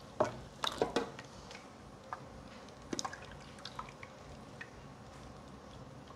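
Fresh orange-carrot juice scooped from a plastic tub with a small jug and poured into a tall jug: quiet dripping and trickling with a few light plastic knocks, the sharpest in the first second.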